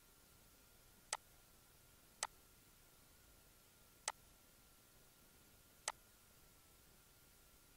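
Computer mouse button clicking four times at uneven intervals, single sharp clicks, over a faint steady high hum.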